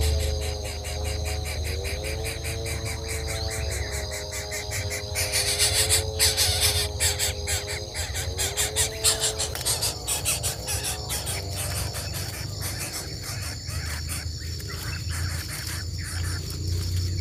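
A steady chorus of insects trilling in rapid, even pulses, with a louder buzzing surge from about five to seven seconds in. A wavering lower tone that bends up and down sounds under it for the first half.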